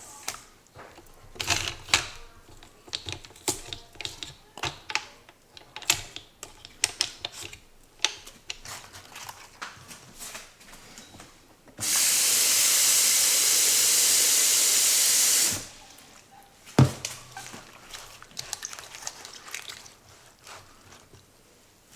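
Kitchen tap running steadily for about three and a half seconds in the middle, the loudest sound. Before and after it come irregular light clicks and knocks of kitchenware being handled, with one sharper knock just after the water stops.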